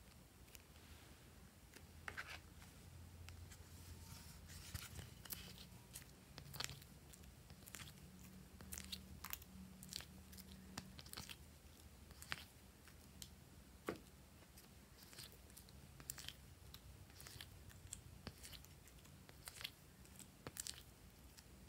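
Faint, irregular clicks and soft crunches of hands handling soft modelling-clay pieces and a plastic ice-cube tray over glass dishes of slime.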